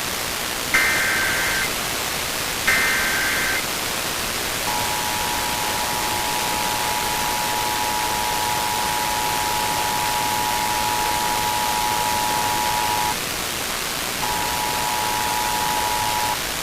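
Emergency Alert System test tones under a steady hiss of static: the last two of the three short screeching SAME digital header bursts, then the two-tone EAS attention signal held for about eight seconds. The attention signal breaks off briefly and comes back for about two seconds near the end.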